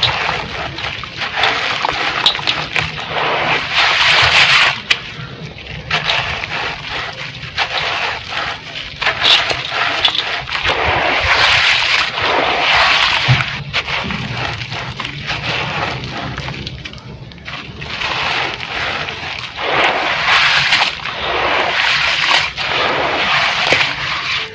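Lumps of red gritty dirt crumbling and splashing in water. It comes as repeated swells of gritty, crackling noise, each a second or two long, with small clicks through them.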